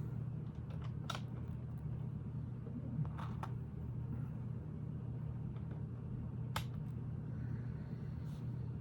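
A few sharp plastic clicks as small Lego pieces are handled and pressed into place, over a steady low hum.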